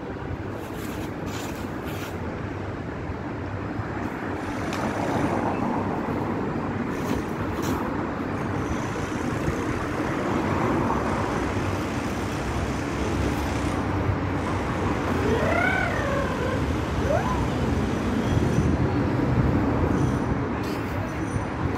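Steady hum of city traffic, with a short high call that rises and falls about fifteen seconds in.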